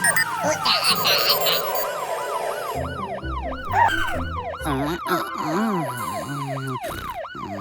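A cartoon siren wailing in a fast, even yelp, rising and falling about four times a second, with other sliding cartoon sound effects over it.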